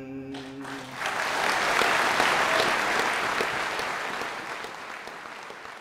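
A man's held final sung note ends about a second in, and an audience breaks into applause, loudest just after it starts and slowly dying away.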